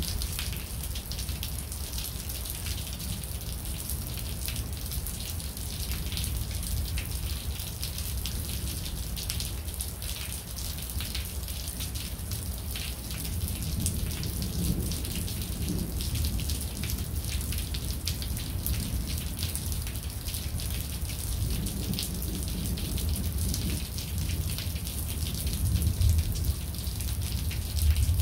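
Steady rain pattering, with a low rumble of distant thunder that swells a few times and is strongest near the end.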